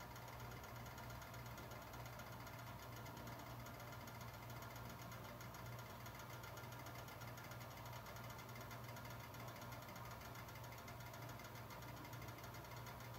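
Eggs frying in a stainless steel skillet, a faint steady sizzle of fine crackles, over a constant low hum.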